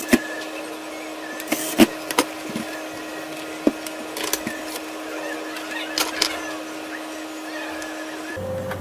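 Scattered clicks and knocks of a camcorder's plastic body being handled, turned over and set down on a cloth-covered workbench, over a steady hum. The background changes abruptly near the end.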